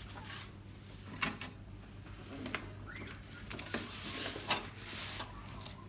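A 32-inch LED TV's plastic bezel and panel being handled and turned over: a few sharp plastic knocks and clicks with some scraping between them, over a low steady hum.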